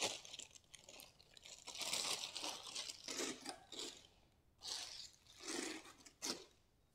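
Packaging wrap being torn and crumpled by hand as a statue part is unwrapped: a string of irregular crackling, rustling bursts that stop shortly before the end.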